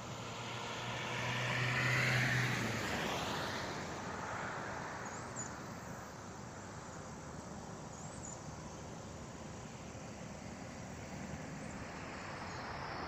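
A car passing on a rural road: engine and tyre noise swell to a peak about two seconds in and fade away, leaving a steady hiss of road and wind noise.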